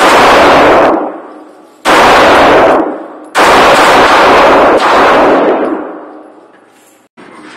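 Three pistol shots about a second and a half apart, each overloading the recording and ringing on in the echo of the indoor range's concrete lane. A much quieter short knock comes near the end.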